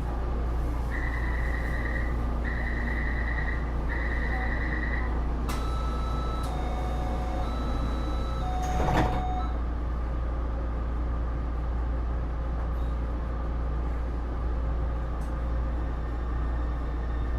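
Inside a Taipei Metro C301 train car: three long door-closing warning beeps, then a short run of tones at changing pitches, ending in a knock as the sliding doors shut, over the car's steady low hum.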